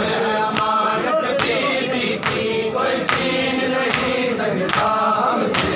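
Crowd of male mourners singing a lament (noha) together, with hands striking chests in unison (matam) on a steady beat about every 0.8 seconds.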